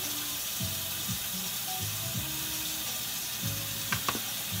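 Faint background music over a steady hiss, with a couple of sharp clicks about four seconds in.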